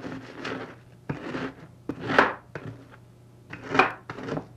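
Ginger snap cookies crunching and crackling inside a plastic bag as they are crushed into fine crumbs under a wooden rolling pin, in about five separate strokes, the loudest about two seconds in.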